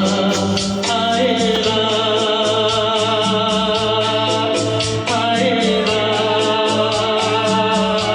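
A Hindi song sung over keyboard accompaniment, the voice holding long, wavering notes above a fast, even ticking beat.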